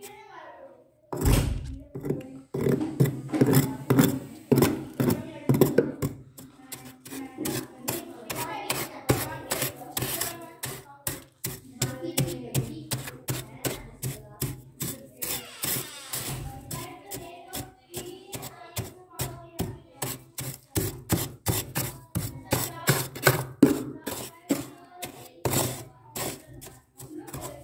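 A large steel spoon scraping and digging through thick soft freezer frost in quick repeated strokes, about two a second, each a short crunchy scrape.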